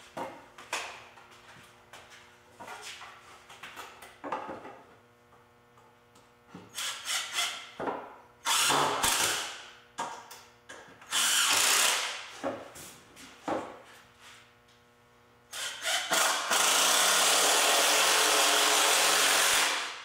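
Cordless impact driver driving wood screws into 2x4 framing: a few short runs, then one long steady run of about three and a half seconds near the end. Before that, knocks of the lumber being set in place.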